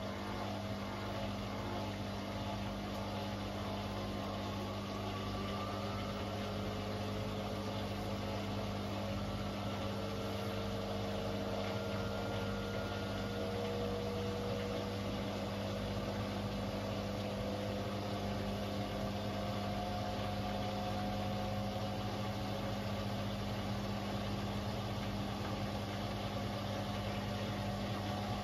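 Beko WTK74011W front-loading washing machine spinning its drum on a 1400 rpm spin-and-drain cycle, with a steady low hum under a motor whine that slowly rises in pitch as the drum picks up speed.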